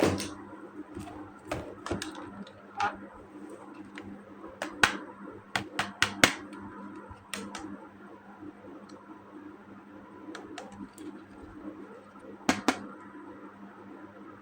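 Irregular sharp clicks and taps of plastic toys being handled and unboxed, with a cluster of louder clicks about five to six seconds in and a close pair near the end, over a faint steady hum.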